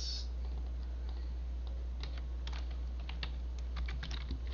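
Computer keyboard typing: a run of quick keystrokes, denser from about two seconds in, as a number is typed into a text field, over a steady low hum.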